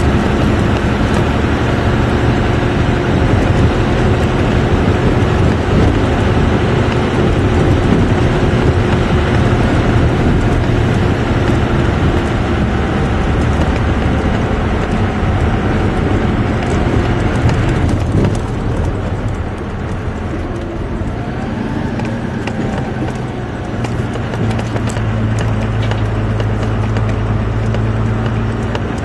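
Dodge Ram 2500's 12-valve Cummins inline-six turbo-diesel pulling under load while hauling a heavy bulldozer, heard from inside the cab with road noise. About two-thirds of the way through the engine note eases and gets a little quieter, then settles into a steadier drone.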